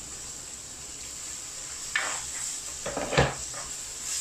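Wooden spatula stirring and scraping shallots and tomato masala in a clay pot, knocking against the pot a few times, with the sharpest knock about three seconds in. A steady sizzle of frying runs underneath.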